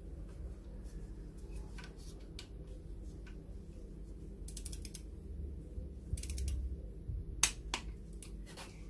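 Torque wrench ratchet clicking in short quick runs as a new cylinder head bolt is drawn down for the first 10 Nm stage, with one sharp, much louder click about seven and a half seconds in.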